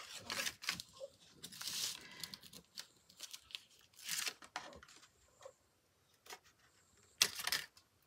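Cardboard and paper being handled: rustling and crinkling as a cardboard candy box is moved and set aside, in short scattered bursts with a few light clicks and quiet gaps between.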